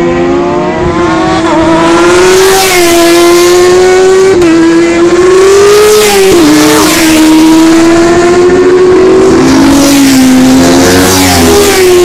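Superbike racing motorcycles at full throttle, coming closer. The engine note climbs and drops sharply at each upshift, and a second bike's lower note joins in the later seconds.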